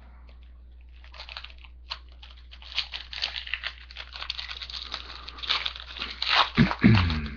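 Foil trading-card pack wrapper being torn open and crinkled in the hands, an irregular run of crackles and rustles. A brief voice sound comes near the end.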